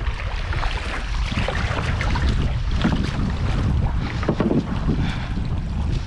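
Wind buffeting the microphone with a steady low rumble, over water sloshing and splashing around a small wooden canoe as it is paddled through wave-rippled shallows.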